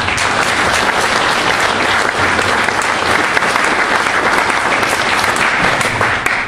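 A large congregation applauding, a dense steady clapping that starts suddenly and cuts off suddenly near the end.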